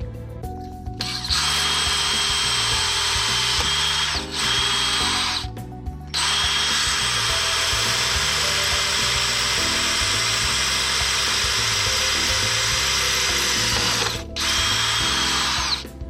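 Electric drill running a masonry bit into masonry, in several runs: a short one, a brief one, a long steady one of about eight seconds, then a short last one, with brief stops between.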